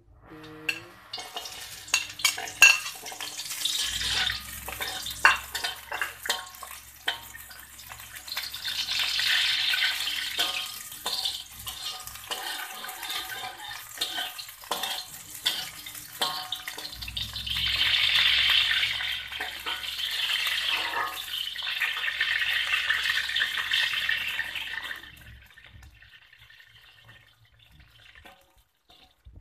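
Garlic cloves frying in oil in a wok, with clicks and knocks of a metal spatula against the pan. The sizzling swells twice, about a third of the way in and again from a little past halfway, then dies down near the end.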